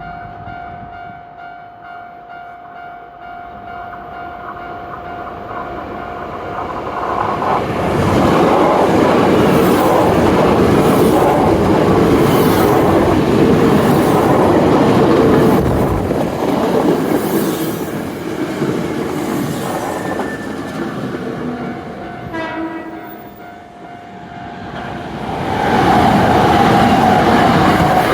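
A level-crossing warning bell ringing as a Hankyu electric commuter train passes over the crossing. The train noise builds from about six seconds in and stays loud for around fifteen seconds. The bell's tone stands out again during a lull, then a second train passes loudly near the end.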